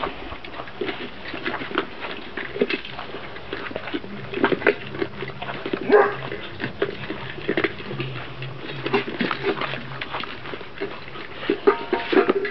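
Kuvasz puppy eating dry kibble from a stainless steel bowl: irregular crunching and clicking of kibble and metal as it noses through the bowl. A short puppy whimper comes near the end.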